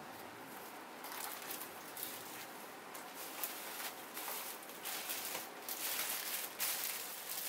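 Plastic packaging bags rustling and crinkling in irregular bursts as they are handled and lifted off a desk.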